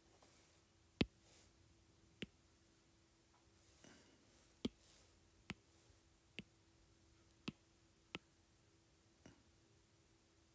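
Stylus tip tapping on a tablet's glass screen: about eight short, sharp taps at uneven intervals, with soft breathing between them and a faint steady hum underneath.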